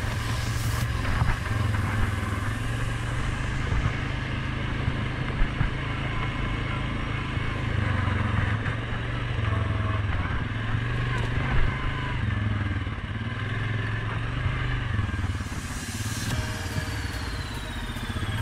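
Suzuki King Quad 750 ATV's single-cylinder engine running on the move, its note rising and falling with the throttle, with two sharp knocks along the way.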